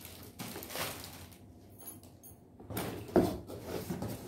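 Rummaging in a cardboard box: cardboard and plastic-wrapped toys rustling and scraping as they are moved, with a sharp knock about three seconds in.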